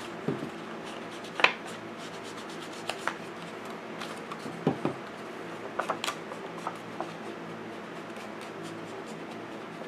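Black Soot Distress Oxide ink being worked onto the edges of a paper card panel: scattered soft taps and short scrapes of the inking tool against the paper, with a few sharper ticks.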